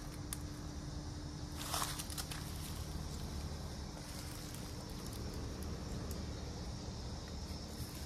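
Mitsubishi Electric inverter heat pump outdoor unit running in cool mode: a steady low hum with a steady tone over it. A brief rustle of footsteps on leaf mulch comes about two seconds in.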